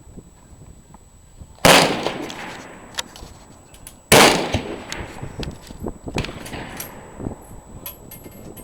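Two 8mm rifle shots about two and a half seconds apart, each a loud crack trailing off in a long echo, with a few fainter clicks and knocks between and after them.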